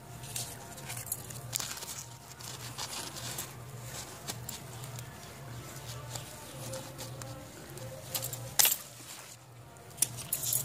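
Leaves and stems of an eggplant plant rustling as a hand handles the fruit close to the microphone, with scattered sharp clicks, the loudest a little past the middle and near the end. A low steady hum runs underneath.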